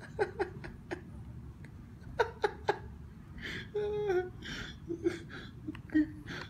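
Quiet, stifled human laughter: short breathy chuckles and snickers, with a brief wavering voiced note about four seconds in.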